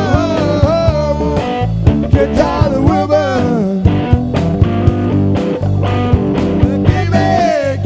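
A live rock band plays an instrumental passage: drums and bass keep a steady groove under a lead line of bending, sliding notes.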